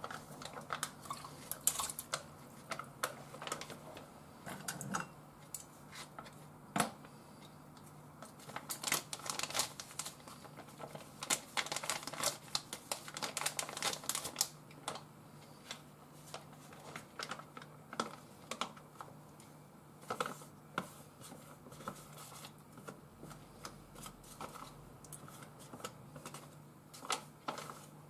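Irregular light clicks, taps and rustles of a plastic pouch being handled and its clam-and-broth filling scraped out with wooden chopsticks into a rice cooker's inner pot, busiest about nine to fifteen seconds in.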